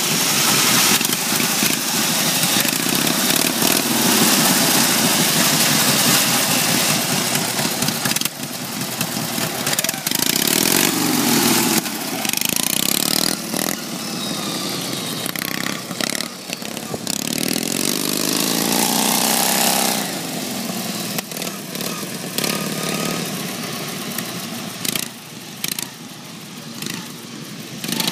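Straight-piped riding-mower engine running loud on a stripped racing lawn tractor, revving up and down as it drives away and back past, its pitch rising and falling and its level dipping as it moves off.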